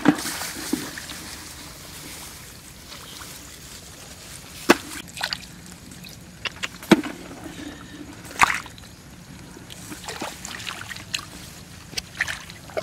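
Shallow rice-field water sloshing and trickling, with sharp splashes every second or two.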